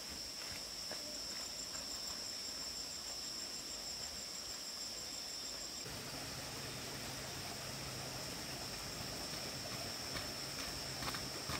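Insects chirring outdoors: a steady high-pitched drone with a faster pulsing chirp over it, and a faint low hum joining about halfway through.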